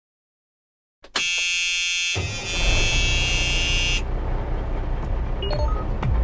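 Opening of an electronic music track: a bright, buzzy synthesizer tone enters about a second in and cuts off suddenly near four seconds, over a low drone that comes in around two seconds; short pitched pings start near the end.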